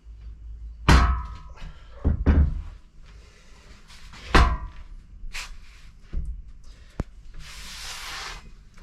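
Heavy knocks and clanks of steel pieces and tools being handled and set down on a workbench, the first briefly ringing, with a short hiss near the end.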